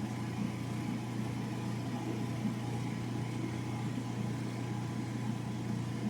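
General Electric gas clothes dryer running with its drum removed: the motor and blower give a steady hum. Its gas burner has lit and it is heating properly again.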